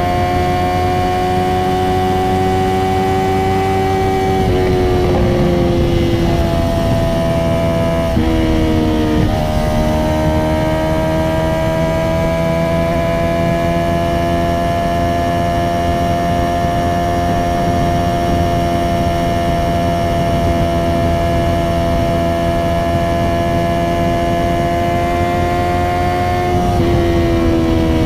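Honda CBR650R's 649 cc inline-four engine through an Akrapovic titanium exhaust with no dB killer, running at steady cruising revs on the move. The revs dip briefly about four seconds in, again around eight to nine seconds in, and near the end.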